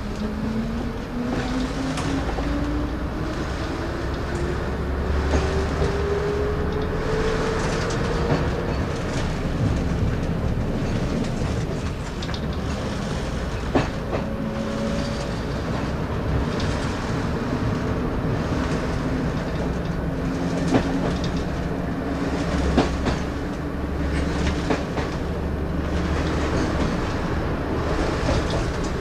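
Class 117 diesel multiple unit under way, heard from the cab: the engine note climbs steadily in pitch for about eight seconds as the train gathers speed, then holds lower and steady. The wheels click over rail joints, with a few sharp knocks along the way.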